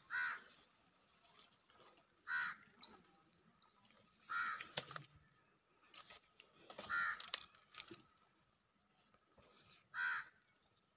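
A crow cawing: about five single calls spaced two to three seconds apart.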